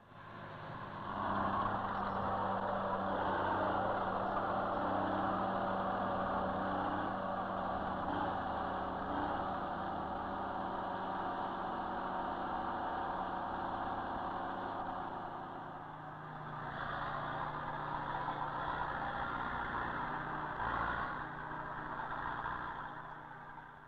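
Heavy earthmoving machinery, draglines and crawler bulldozers, running steadily as they backfill a pipeline trench; the engine note dips and changes pitch about two-thirds of the way through.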